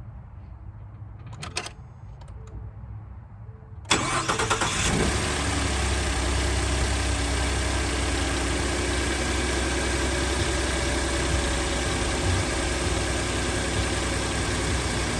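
Ford F-150 engine being started: after a short burst of clicks, the starter cranks for about a second just under four seconds in, the engine catches and then idles steadily.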